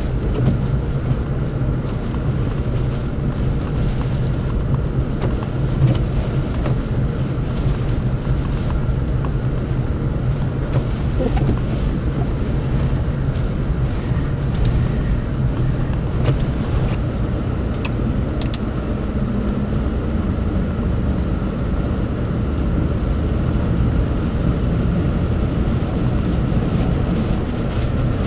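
Steady low rumble of a vehicle driving through a blizzard, mixed with blowing wind.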